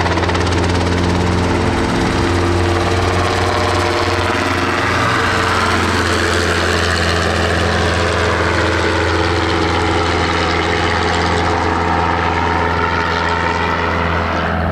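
Robinson R22 helicopter flying overhead: its piston engine and two-blade main rotor running steadily with a strong low drone, the higher tones sweeping slowly up and down as the helicopter moves.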